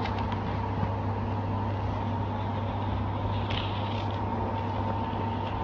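Steady low machine hum with a thin, faint high whine held over it, unbroken throughout.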